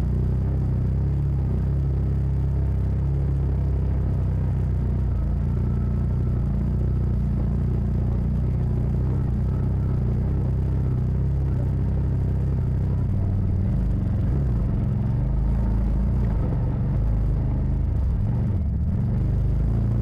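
Side-by-side UTV engine running at low revs while crawling over a muddy, rocky trail, heard from inside the cab: a steady low drone whose pitch shifts a little in the second half.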